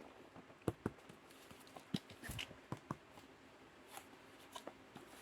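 Handling of a parcel and book: scattered light taps and clicks, about eight in all, with a short rustle of packaging just after two seconds in.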